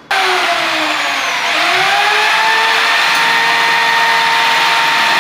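Electric power tool motor switched on, starting suddenly and running with a loud whine that dips briefly about a second and a half in, then holds steady.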